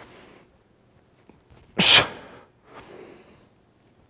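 A man's breathing during single-leg deadlift reps. A soft inhale at the start, a sharp, forceful exhale through the mouth about two seconds in, then another soft inhale. The breath is timed to the lift: in while hinging down, out hard while driving the hips forward.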